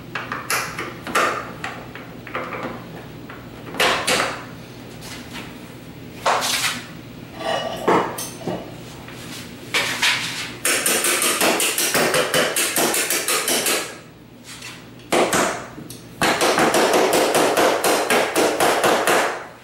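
Steel door hinge pin being driven back down through the hinge knuckles with a metal tool, metal striking metal. Scattered single taps at first, then in the second half long runs of rapid taps.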